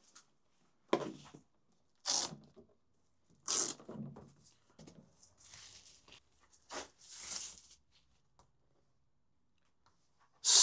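Unpacking handling noise from a hard plastic carry case: a string of short tearing, rustling scrapes as the straps and wrapping around a tablet are pulled off, with a few light knocks against the case. A longer rustle comes a little past halfway, and the last two seconds are quiet.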